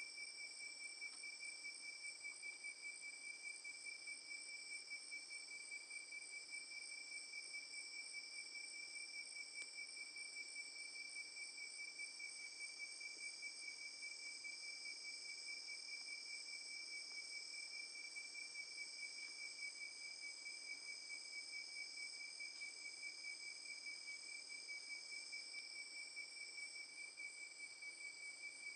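Night insect chorus of crickets trilling steadily: several unbroken high-pitched tones at different pitches, with one clear lower tone beneath them.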